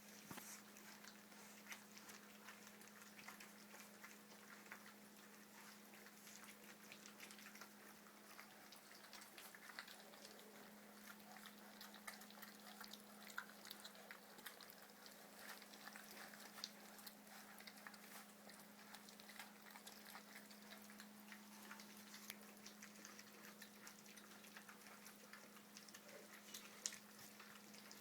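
Three-week-old puppies eating their first soft solid food: faint, irregular wet lapping and smacking clicks, over a steady low hum.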